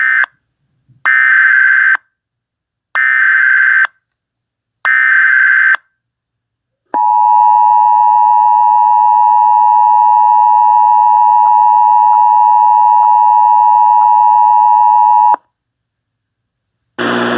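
Emergency Alert System tones: a short digital data burst, then three rasping one-second SAME header bursts about a second apart. These are followed by the EAS two-tone attention signal, held steady for about eight seconds before cutting off. A loud burst of noise starts just before the end.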